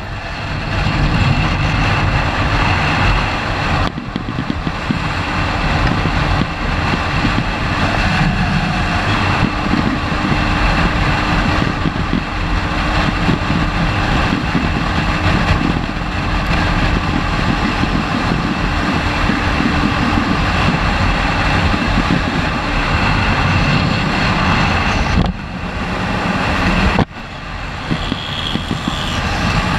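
Motorcycle riding at highway speed: a Yamaha YBR 125G's single-cylinder four-stroke engine runs hard under rushing wind on the microphone. The sound drops off briefly twice near the end.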